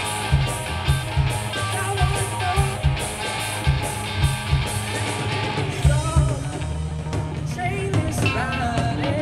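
Live rock band playing through a PA: a drum kit keeping a steady beat under electric guitars, with a woman singing into a microphone. The drum strokes thin out about six seconds in, leaving the guitars and voice more to the fore.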